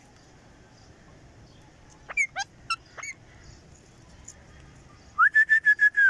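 Rose-ringed parakeets calling: a few quick sweeping chirps about two seconds in, then near the end a rapid trilled whistle held on one pitch that falls away at its close.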